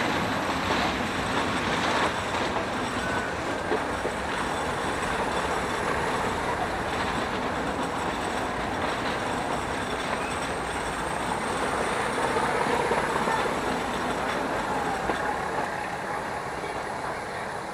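Nilgiri Mountain Railway toy train, diesel-hauled, running along the track as heard from inside a carriage by the open window: a steady rumble and rattle of the coaches with a few light knocks.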